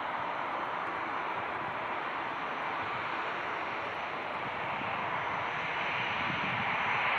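Airbus A320-216's CFM56-5B jet engines running: a steady rushing noise, strongest in the mid and upper range, growing slightly louder near the end.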